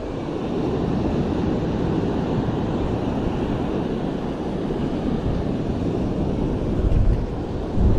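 Wind rushing over the microphone with surf washing behind it: a steady rushing noise, with a louder gust about seven seconds in.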